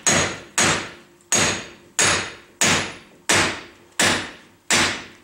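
Hammer blows on the nut threaded onto the end of a rust-seized CV axle: about eight sharp metallic strikes a little over half a second apart, each ringing briefly. The blows are driving the seized axle out of the wheel hub.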